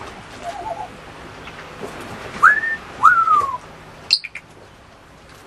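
African grey parrot whistling: a short warbling chatter, then two loud whistles, the first rising and held, the second rising and then sliding down. A sharp click or squeak about four seconds in.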